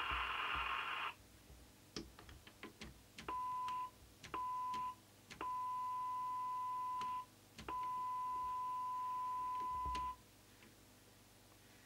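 Eurosonic ES40CB CB radio receiver playing the signal generator's steady test tone over hiss through an extension speaker. About a second in the squelch shuts it off. After a few clicks the tone cuts back in four times, the last two bursts longer, as the squelch is set at its threshold.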